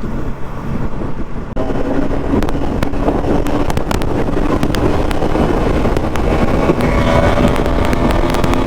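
Wind rushing over the rider's microphone on a moving Bajaj Pulsar NS200, with the motorcycle's single-cylinder engine running underneath; the noise steps up about a second and a half in.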